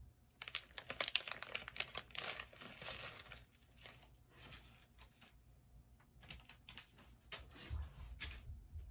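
Plastic snack bag being cut open and handled: a run of quick clicks, snips and crinkling crackles of the packaging.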